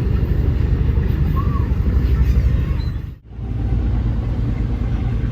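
Tour boat's engine running steadily, a low rumble, cutting out abruptly for a moment a little past three seconds in before carrying on.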